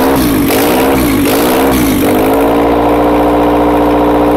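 Freshly rebuilt Honda D16Y8 single-cam VTEC four-cylinder engine on its first start, blipped at the throttle so its speed rises and falls several times in quick succession, then settling into a steady idle about two and a half seconds in.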